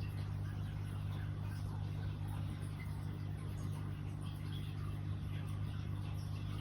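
A sleeping cat snoring: a steady low rumble that runs on without clear pauses.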